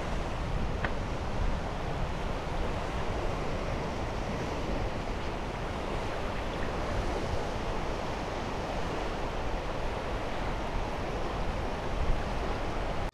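Steady wind and shallow water noise, with the wind rumbling on the microphone.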